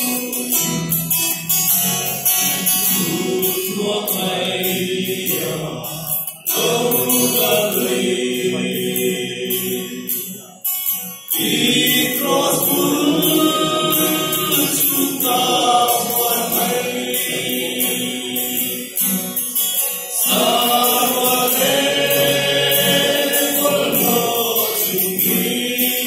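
Male voice choir singing a hymn together, with brief breaks between phrases three times.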